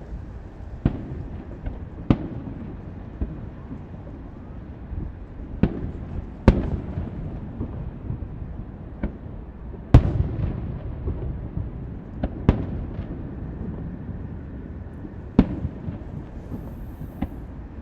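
Fireworks display: about a dozen sharp shell bursts at irregular intervals, each trailing off in a low rumble. The two loudest come about six and a half and ten seconds in.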